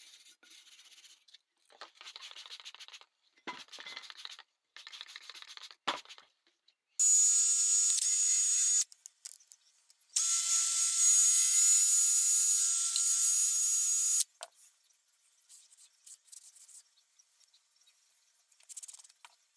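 Hand wire brush scrubbing the degreaser-wet body of a 1938 Reed vise in short strokes, then an electric drill spinning a small wire brush on the vise in two runs, about two seconds and then about four seconds, with a steady motor whine. Faint hand scrubbing follows near the end.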